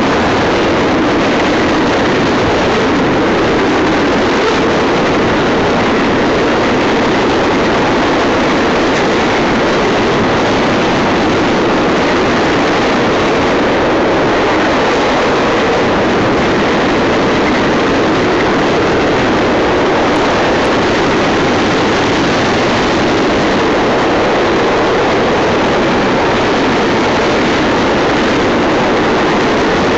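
Double-stack container train cars rolling past close by: loud, steady noise of steel wheels on rail.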